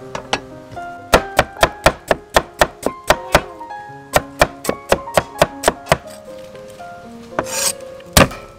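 A cleaver chopping on a thick round wooden chopping block: two runs of sharp knocks at about four a second, then a brief scrape and a single heavier thunk near the end.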